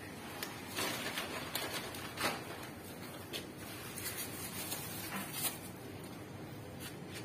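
A few sharp clicks and knocks from metal pipe and fittings being handled at a deep-well head, over a steady low hiss.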